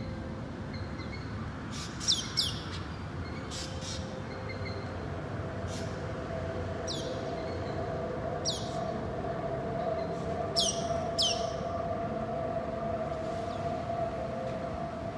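Birds calling in short, sharp falling chirps, several times and some in quick pairs, over a steady distant city hum. A steady droning tone comes in about a third of the way through and holds.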